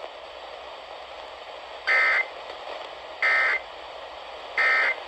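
Emergency Alert System end-of-message signal: three short bursts of SAME digital data tones, a raspy warble near 2 kHz, about 1.3 s apart, over steady radio hiss. It marks the end of the flash flood warning broadcast.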